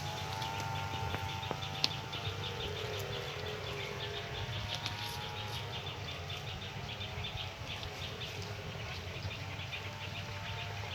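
Outdoor rural ambience: short high chirps repeated about five times a second over a steady humming tone, with a single sharp click about two seconds in.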